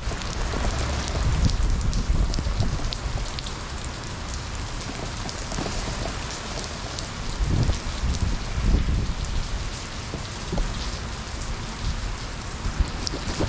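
Heavy rain falling during a thunderstorm, a steady hiss with individual drops ticking, over a low rumble that swells about halfway through.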